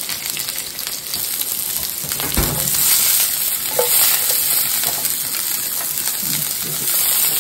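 Sliced red bell pepper and green chilies sizzling in oil in a frying pan, the pan shaken to toss them. The sizzle grows louder about three seconds in, and there is a single low knock just before.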